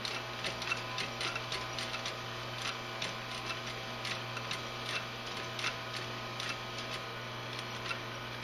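Industrial walking-foot sewing machine stitching leather slowly, with the pedal feathered, clicking about twice a second with each stitch over the steady hum of its clutch motor.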